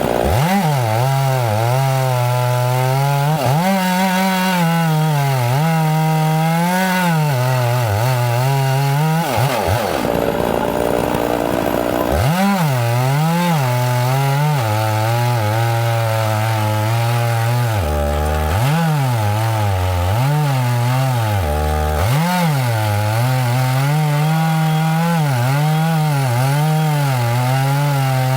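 Two-stroke chainsaw running at high revs while cutting into a pine. Its pitch keeps sagging and recovering as the chain loads up in the cut. About ten seconds in the steady tone drops out for roughly two seconds, then the saw revs back up and carries on cutting.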